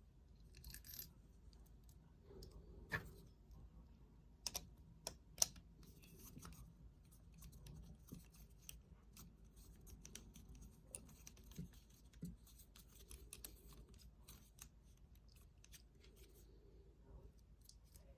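Faint, scattered small clicks and light scrapes of metal padlock parts being handled and fitted on a Master Lock 911, a few sharper ticks among them, as a loose-feeling part is reworked.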